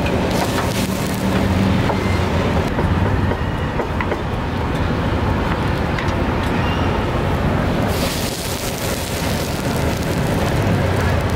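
Steady rumble of street traffic and stall noise, with the hissing rush of a gas wok burner heating broth. The hiss comes up briefly at the start and again from about eight seconds in.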